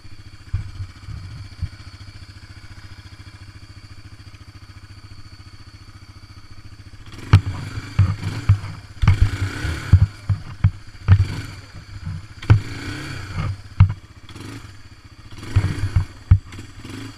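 ATV engine running steadily at idle. From about seven seconds in, a string of loud, irregular thumps and clattering knocks comes over the engine.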